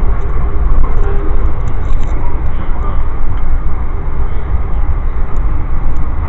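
Steady, loud rumble of an Amtrak passenger car rolling at speed on the rails, heard from inside the coach.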